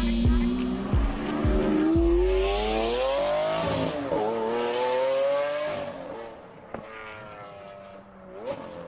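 A car engine accelerating: its pitch climbs steadily, drops sharply at a gear change about four seconds in, climbs again, then fades away.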